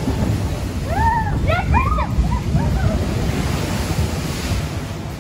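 Log flume boat plunging down a drop: rushing air and water, with wind buffeting the microphone. Riders shriek several times about a second in, then spray hisses as the log splashes into the water near the end.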